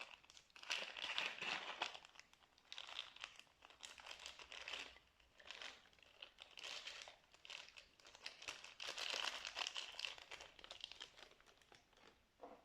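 Slime being squished and pressed by hand, giving wet crackling and small popping sounds that come in repeated swells, about one every two seconds.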